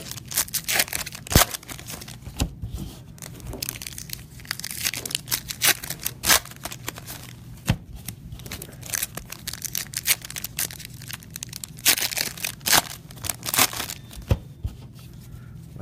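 Foil trading-card pack wrappers crinkling and tearing open, with cards rustling as they are handled. It comes as irregular crackles and rustles in several bunches.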